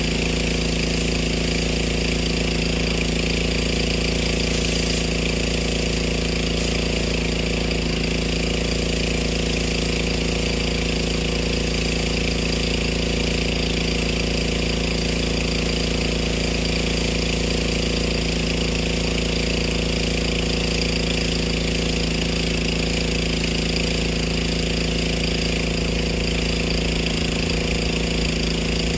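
Craftsman gas pressure washer's small pull-start engine running steadily at a constant speed.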